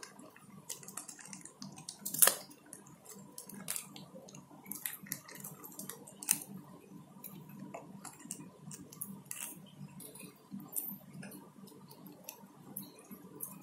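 Scattered small crinkles and clicks of bare hands picking apart fried catfish and handling a plastic wrapper, with one sharper click about two seconds in.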